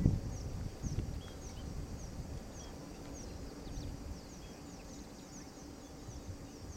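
A bird repeating a short, high chirp about twice a second, over a low rumble of wind on the microphone that is strongest at the very start.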